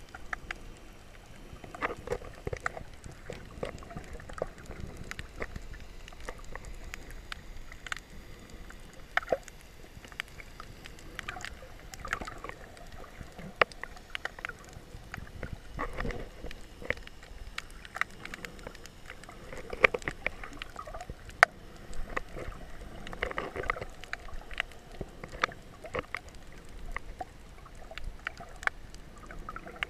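Water sound heard underwater on a snorkel swim: a muffled wash with many scattered sharp clicks, and a few louder gurgling swells every few seconds.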